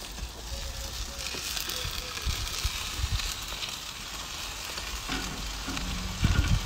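Steak and hispi cabbage sizzling on the hot grate of an open Big Green Egg kamado grill, a steady frying hiss, with a few low thumps near the end.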